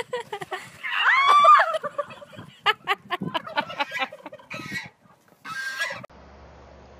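Farmyard poultry calling: one loud drawn-out call about a second in, then a quick run of short clucking calls and two more calls, cut off abruptly shortly before the end.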